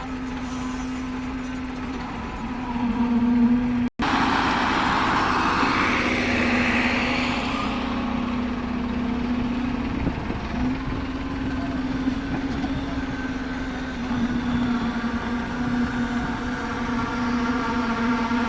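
A machine engine at the concrete works runs steadily with an even hum. Just after a brief cut about four seconds in, a rushing hiss rises over it for a few seconds and fades.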